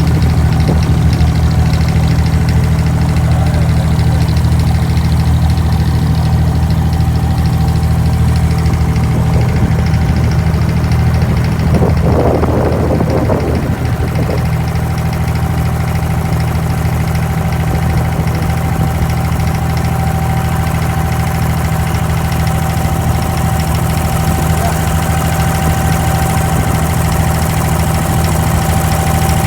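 Abra water taxi's diesel engine running steadily, with a deep, even drone.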